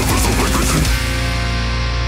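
Heavy rock music with distorted electric guitar, reproduced by Elektronika 25AS-128 loudspeakers with equalization and picked up close to the speaker by a measurement microphone. About a second in it settles into a held chord over steady bass, and the highest treble drops out.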